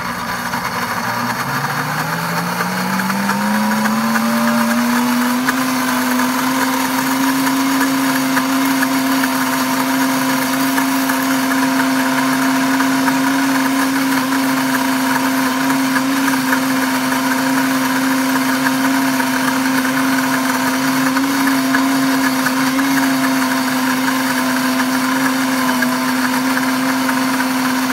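Pampered Chef Deluxe blender running, blending a thick paste of roasted hazelnuts and cocoa into a smooth spread. Its motor hum rises in pitch over the first few seconds as it speeds up, then runs steady and loud.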